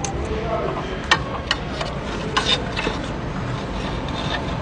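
Light metallic clicks and scrapes of a NOx sensor being fitted and threaded into a diesel truck's DPF outlet, a handful of sharp ticks in the first three seconds, over a steady low hum.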